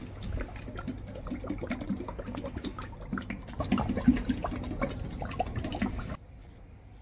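Cooking oil glugging out of a metal tin and splashing onto raw beef shanks, with many small wet clicks; the pour stops suddenly about six seconds in.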